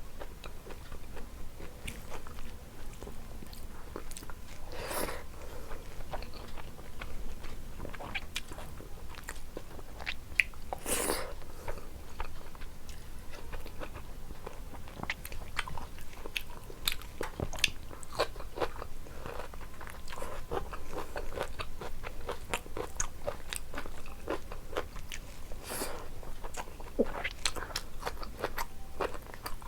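A person eating close to the microphone: continuous chewing with many small wet mouth clicks. Louder crunchy bites of fried food come about five and eleven seconds in.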